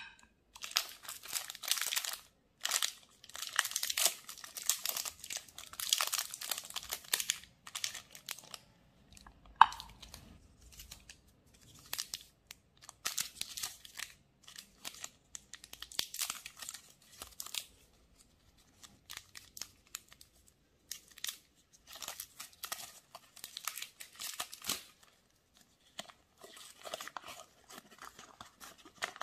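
A KitKat's plastic wrapper and inner foil crinkling and tearing as the bar is unwrapped by hand, in clusters of crackling with short pauses. One sharp snap about ten seconds in is the loudest sound.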